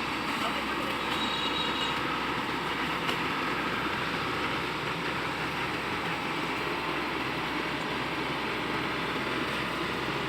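Rice combine harvester running with a steady, even mechanical noise.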